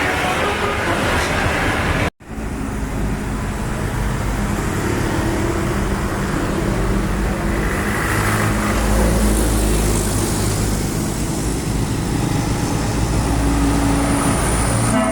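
Heavy road traffic, with engines of large vehicles rumbling and tyre noise as they pass. The sound cuts out completely for a moment about two seconds in, then picks up again.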